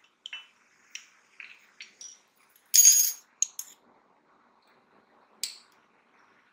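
Plastic spoon clinking against a glass while stirring a cornflour-and-vinegar mix: a run of light clicks, a louder clatter about three seconds in, and a last click a little over five seconds in.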